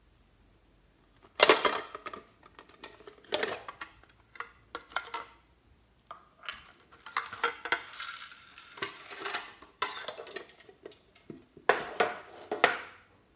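Handling and opening a metal tin box: a sharp clack about a second in, then irregular knocks, clinks and rustling, and another sharp clack near the end.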